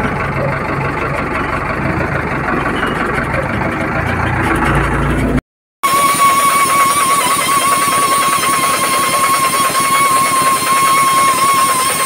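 A JCB 4DX backhoe loader's diesel engine running, heard from inside the cab. After a sudden cut there is a steady high-pitched whine from a hose-fed pneumatic buffer grinding the rubber of a large inner tube around the puncture, preparing it for a patch.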